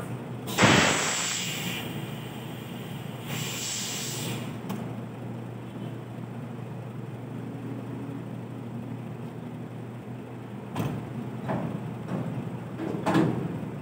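Compressed air hissing from a tractor truck's air brake system in two bursts, the first about half a second in and the louder, fading over about a second; the second comes about three seconds later. A steady low hum from the idling diesel engine runs underneath.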